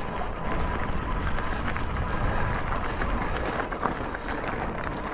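E-bike riding over a rough trail: tyres crunching and rattling, with many small clicks and knocks, wind rumbling on the microphone and a faint steady whine.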